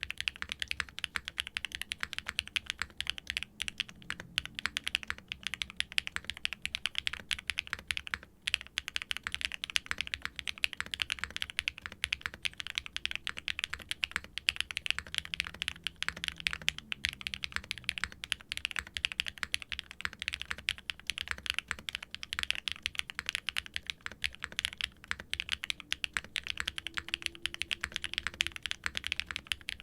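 Continuous typing on an aluminum-cased TKD Pt. 1/75 mechanical keyboard with a forged carbon fiber plate, Keygeek M1 linear switches and GMK doubleshot ABS keycaps: a steady stream of creamy, clacky keystrokes, with a brief pause about eight seconds in.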